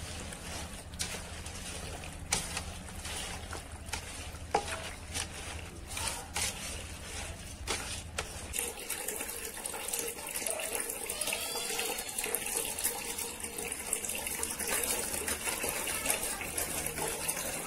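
Wet handling noise with scattered sharp clicks as cut eel pieces are turned over in a pot. After about eight seconds this gives way to a steady hiss of water running and splashing while whole carp are washed by hand in a plastic basin.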